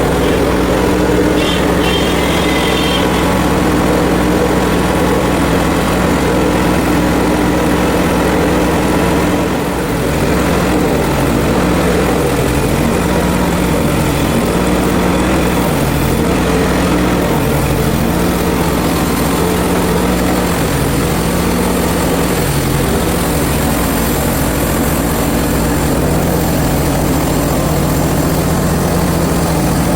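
Portable band sawmill's engine running steadily, its low hum wavering slightly in pitch from about ten seconds in.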